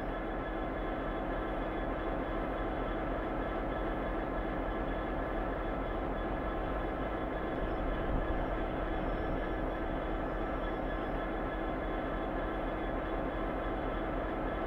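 British Rail Class 66 diesel freight locomotive going by, its two-stroke V12 diesel engine running steadily under a hum of wagons on the rails. The sound is steady, with a small bump in level about eight seconds in.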